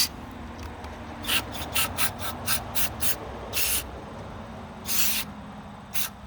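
A quick run of short hissing spurts, about four a second, followed by two longer hisses and one last short one.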